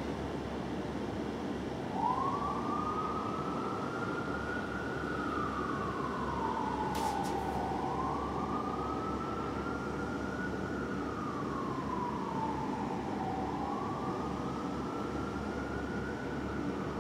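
Fire engine's Whelen electronic siren in wail mode. It cuts in about two seconds in and sweeps slowly up and down about three times, over a steady hum of city traffic.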